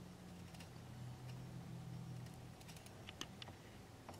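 Faint, scattered small clicks and taps as a porcelain platter fragment is handled and pressed into alignment against the rest of the platter, over a low steady hum.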